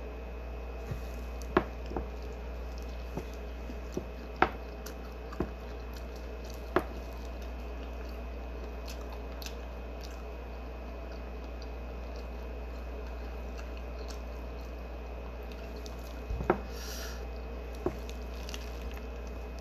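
A person chewing shrimp from a seafood boil, with wet squishing mouth sounds and a few short sharp clicks, mostly in the first seven seconds and again near the end, over a steady low hum.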